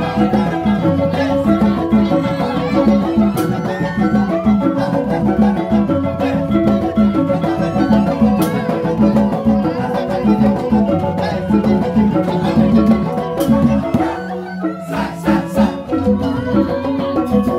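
Balinese gamelan accompanying a joged dance: two kendang hand drums keep a fast pulse under the dense, ringing melodic patterns of keyed percussion. The ensemble briefly thins out near the end, then picks up again.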